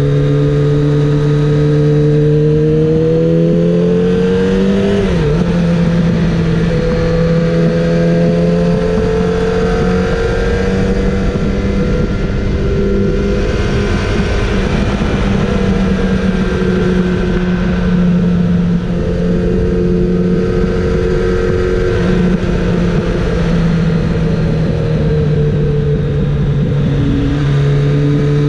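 Kawasaki ZX-7R's inline-four engine running hard at high revs on track, with wind rushing loudly past the bike. The engine note climbs over the first few seconds, dips sharply for a moment about five seconds in, then holds a high, fairly steady pitch with small rises and falls.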